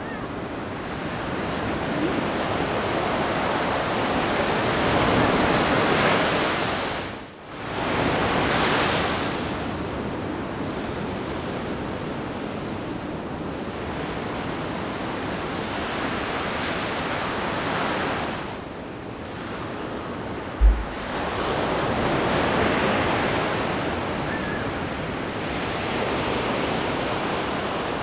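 Ocean surf breaking and rushing in a steady roar that swells and eases every few seconds. There is a brief low thump about two-thirds of the way through.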